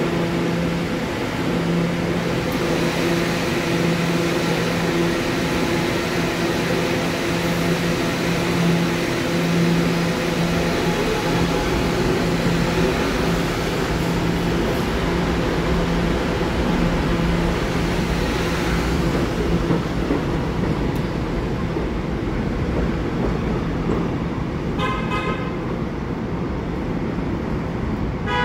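Subway train pulling out of an elevated station, its motors humming steadily and its wheels rumbling on the track as it moves off; the hum dies away a little past the halfway mark. Near the end a train horn sounds two short blasts, the second right at the close.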